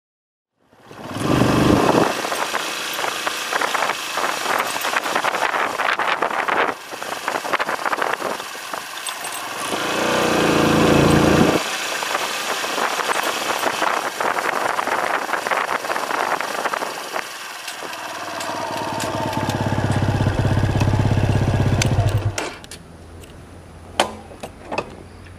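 Dirt-bike engine running while ridden. It rises three times under acceleration, then drops to a quiet idle about 22 seconds in, with a couple of sharp clicks near the end.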